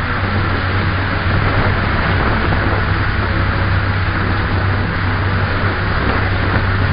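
Steady wind noise on the microphone: a constant low rumble with a hiss above it, no separate sounds standing out.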